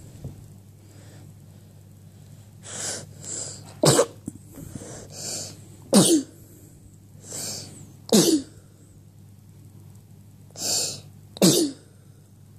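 Four sneezes in a row, each a drawn-in breath followed by a sharp burst, two to three seconds apart.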